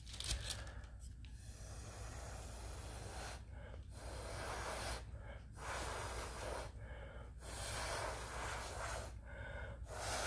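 A person blowing by mouth across wet, freshly poured epoxy resin to push the colours around. There are about five long rushing puffs of breath, each a second or so long, with short pauses between them.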